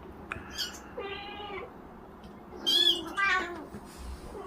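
Russian Blue kittens meowing: several short, high-pitched meows, one falling in pitch about three seconds in.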